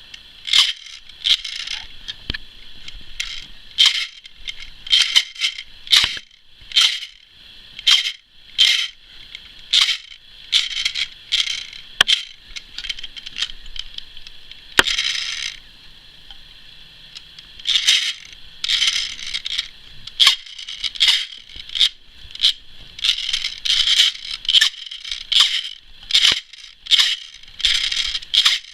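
Cyma MP5 airsoft electric gun's gearbox cycling in many short bursts, each with a high-pitched screech over the gear noise, with a few sharp clicks between bursts. The owner thinks the screech comes from the bevel gear's axle moving inside its bushing.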